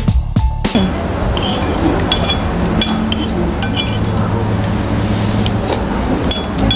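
Forks and spoons clinking against plates, a dozen or so short separate clinks, over steady room noise and a low hum. Under a second of music with a steady beat cuts off at the start.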